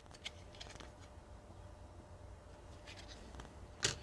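Faint handling of cardboard 2x2 coin flips: a few light taps and rustles, then one sharper tap near the end as a flip is set down on the wooden workbench.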